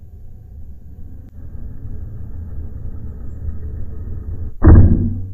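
Wind buffeting the microphone in a steady low rumble, then, about four and a half seconds in, one loud shot from a Hatsan Nova Tact .22 PCP air rifle.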